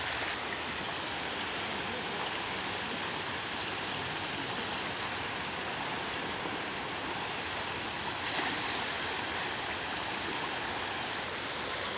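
Floodwater rushing fast over a road in a steady, unbroken wash of water noise.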